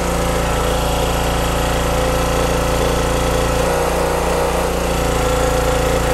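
Yamaha engine of a PLOW GLS12 engine log splitter running steadily, driving the hydraulic ram hard against a pressure gauge at about 17 MPa. The low part of the engine note shifts briefly a little after three and a half seconds.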